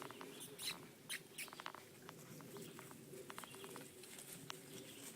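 Light, irregular clicks and rustles of puppies moving about, over a faint steady low hum.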